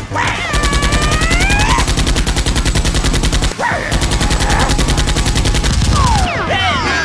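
Rapid automatic gunfire in two long bursts, with a brief break about three and a half seconds in.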